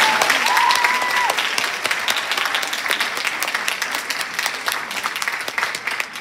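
A large audience applauding, loudest at first and slowly tapering off. A brief high-pitched tone rises over the clapping in about the first second.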